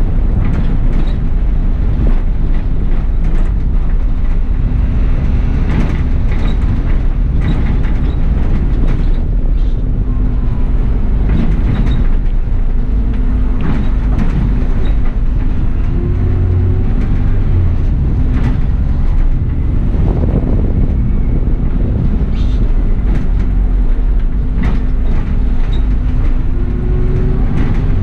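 Bus driving along, heard from the driver's cab: a loud, steady low engine and road rumble with frequent short clicks and knocks throughout.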